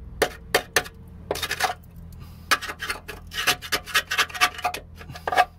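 Screwdriver jabbing and scraping at rusted sheet steel in a Mazda MX-5's rear wheel arch: an irregular run of sharp metallic taps and scrapes in quick clusters. It is probing the corroded panel for rot, where the rust has already gone through to a hole.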